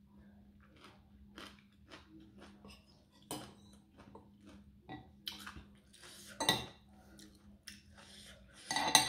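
Metal fork and spoon clinking and scraping on a plate, with chewing and eating sounds between the strikes; the loudest clinks come about six and a half seconds in and near the end.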